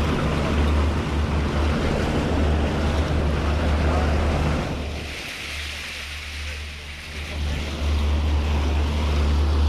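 Boat under way offshore: a steady low engine drone under a rush of wind and water noise, easing for a couple of seconds about halfway through, then building again.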